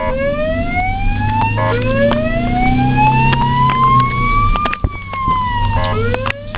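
Electronic ambulance siren wailing in slow sweeps, most likely a Japanese ambulance: a short rise, then one long rise over about three seconds that falls away, then a new rise. Two brief stepped chirps come between the sweeps, over a steady low vehicle hum.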